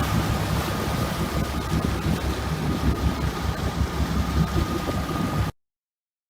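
Wind buffeting the microphone on a boat under way, over a steady low engine hum and water noise. The sound cuts off abruptly into silence about five and a half seconds in.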